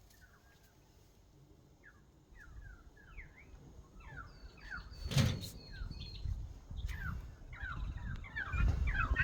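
A bird chirping: a run of short, quick, falling chirps that come faster and louder toward the end. A single loud thump about five seconds in.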